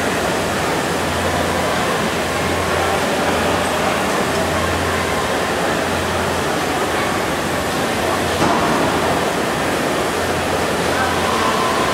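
Steady, even hiss of a crowded exhibition hall with indistinct voices, and a low hum that swells and fades every second or so.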